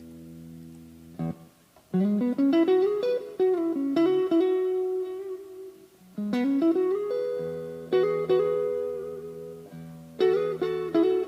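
Fernandes FST-70 Stratocaster-style electric guitar played: a held chord ringing out and cut off about a second in, then phrases of ringing notes, some sliding up in pitch into place.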